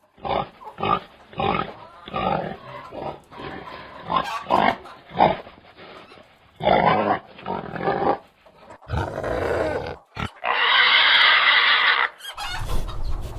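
Domestic pigs grunting in a run of short grunts, then one long, high squeal about ten seconds in.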